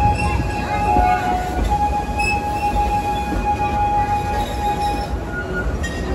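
Theme-park passenger train running on its track, wheels squealing against the rails in a steady high tone over the rumble of the cars; the squeal fades out about five seconds in.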